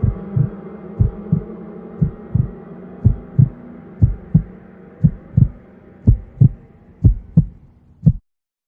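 Heartbeat sound effect: paired low thumps (lub-dub), about one beat a second, over a faint steady hum that slowly fades. The beats stop suddenly near the end.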